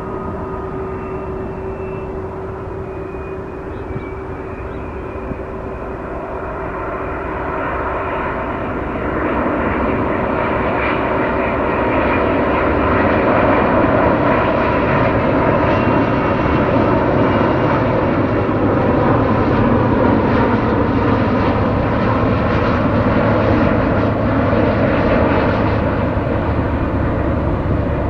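Airbus A330-900neo airliner on final approach, its Rolls-Royce Trent 7000 turbofans giving a steady jet rumble with a whine. The sound grows louder about eight seconds in as the jet comes close, then holds.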